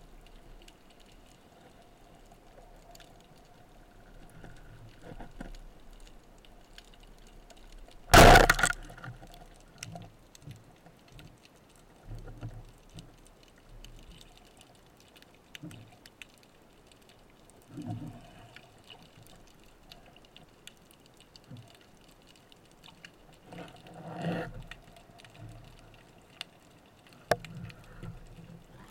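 Speargun firing underwater: a single loud, sharp crack about eight seconds in. Around it are faint scattered underwater clicks and soft knocks from the diver and gun moving through the water.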